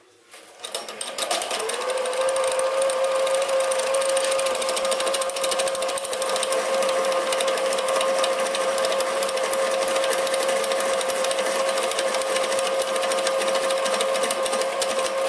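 Sieg SC3 mini lathe taking a cut along the conrod between centres, the tool chattering with a steady high-pitched ring that builds up over the first second or two and then holds. It is chatter from a tailstock left too loose.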